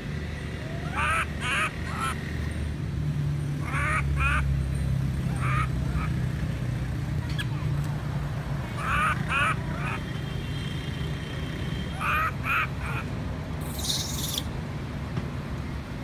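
Baby macaque crying: short, high calls in groups of two or three, repeated every few seconds, over a low steady rumble.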